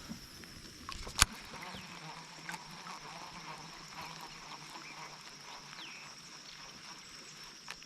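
Quiet lakeside ambience with a steady high insect drone and one sharp click a little over a second in.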